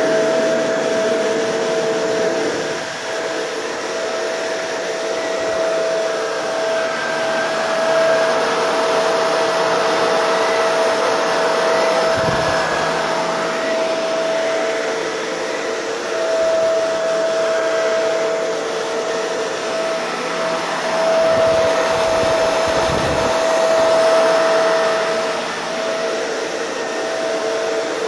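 Shark Rotator NV752 upright vacuum running on its thick-carpet setting while it is pushed over a thick rug: a steady motor whine with two held tones over a rushing hiss of suction. The suction is strong enough to pull the vacuum along on its own.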